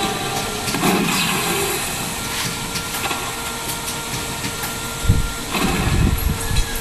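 Steady mechanical-sounding background noise with a few sharp clicks, then several low thuds near the end as something knocks against the microphone close by.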